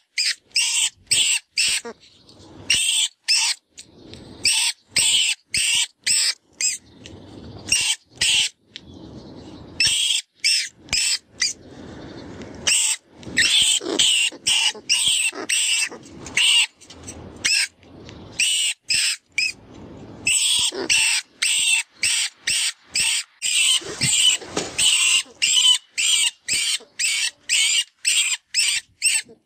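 Rodent distress call from a FoxPro predator caller: runs of shrill, rat-like squeaks at about two a second, broken by a few short stretches of lower, rougher squealing.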